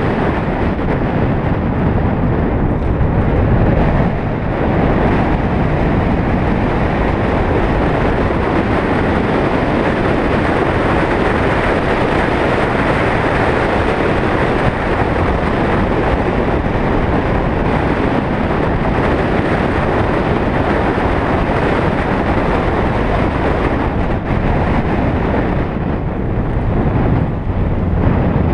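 Steady rush of wind and road noise from a moving vehicle, caught by a vehicle-mounted camera, with no distinct engine note.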